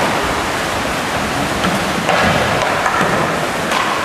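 Kayak paddles splashing and churning pool water in a large indoor pool hall, a steady noisy wash.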